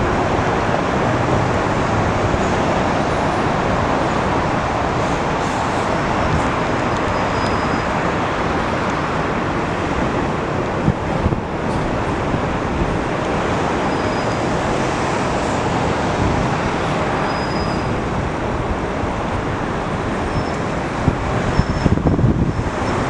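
Steady roar of jet aircraft engines at the airport. Near the end, uneven gusts of wind buffet the microphone.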